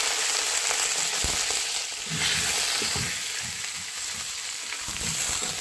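Ginger and chopped vegetables frying in hot oil in a pan with a steady sizzle, while a spatula stirs and scrapes against the pan with irregular knocks from about two seconds in.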